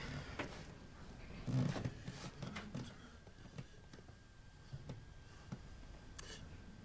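Faint rustling of clothing and a few small clicks and knocks as people shift on a sofa, with a brief louder rustle about a second and a half in, over quiet room tone.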